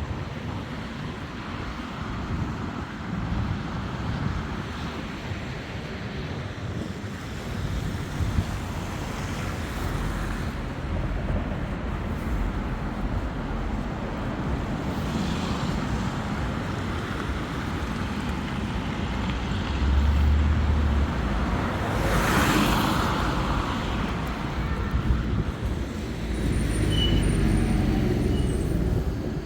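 Urban street traffic: a steady wash of road noise from passing vehicles, with one vehicle passing close and louder about three quarters of the way through.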